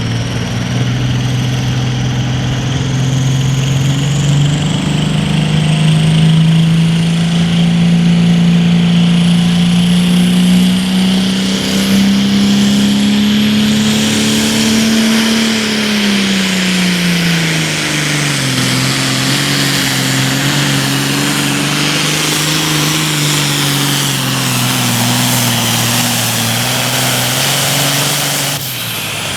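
Modified Super Farm class farm tractor's turbocharged diesel engine under full load pulling the weight sled, with a high turbo whistle above it. Engine speed climbs steadily for about fifteen seconds, falls back and holds lower as the pull goes on, then drops away sharply near the end.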